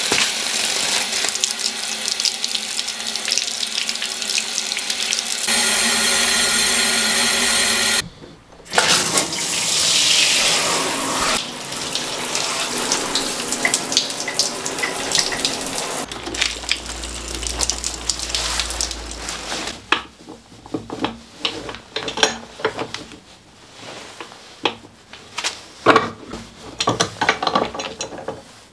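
Water spraying hard from a handheld shower head, in several short segments that start and stop abruptly. Later comes a run of sharp metallic clicks and knocks from a wrench working on brass plumbing fittings.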